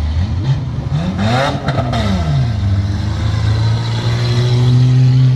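Autocross race cars' engines revving on a dirt track. About a second in, the engine pitch climbs and falls as a car goes by, then a steady engine drone grows louder near the end.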